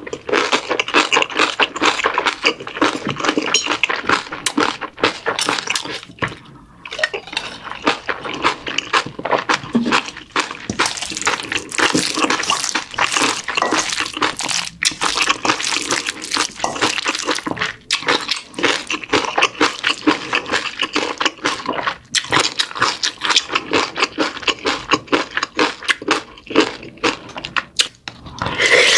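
Spoon stirring and mashing a sauced bibimbap of rice, radish salad, kimchi and tuna in a stainless-steel mixing bowl: a dense, steady run of wet squelches, clicks and spoon scrapes against the metal.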